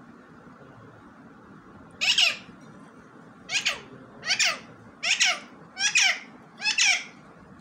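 Alexandrine parakeet calling: six short, harsh, loud calls, the first about two seconds in and the rest in a run roughly a second apart, each one falling in pitch.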